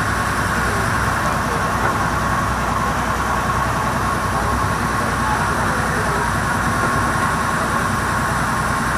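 Steady drone of a river passenger boat's engine under way, mixed with a constant rush of water and wind, holding an even level throughout.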